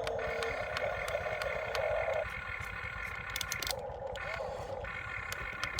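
Excavator running, a steady low engine rumble under a hydraulic whine that changes pitch and cuts in and out every second or two as the machine works, with scattered light clicks.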